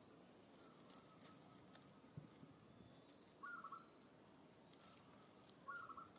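Near silence: faint outdoor ambience with a steady high whine and two short chirps a little over two seconds apart.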